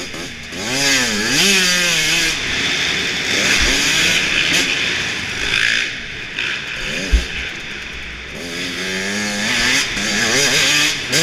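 Dirt bike engine revving, its pitch climbing and dropping again and again as the throttle is opened and closed, over a steady rush of wind and track noise. A few short low thumps, the sharpest about seven seconds in.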